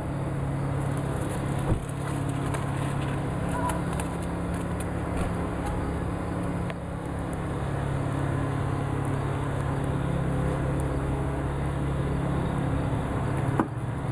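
A steady low mechanical hum with a noisy rumble, like a motor or engine running, with a sharp knock about two seconds in and another near the end.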